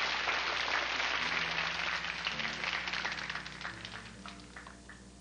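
Audience applause dying away, thinning into scattered single claps before fading out near the end, with a few low held musical notes underneath.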